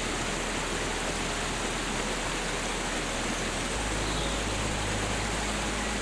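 Water of the Geroldsau waterfall and its stream rushing steadily.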